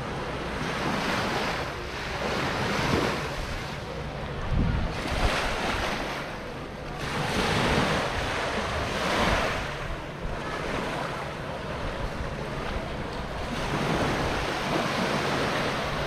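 Sea waves washing onto a sandy beach, rising and falling in repeated surges, with wind gusting on the microphone.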